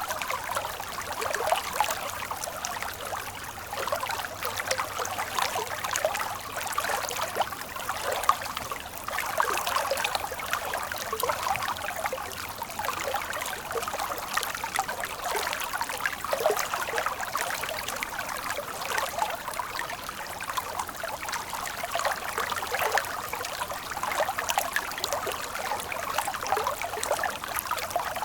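Running water of a small stream: a steady trickling and splashing, mostly in the upper range with little low rumble, wavering in strength without pause.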